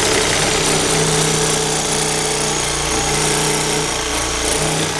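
Milwaukee Sawzall cordless reciprocating saw running steadily, its blade sawing through a rusted steel sway-bar end link whose nut is seized.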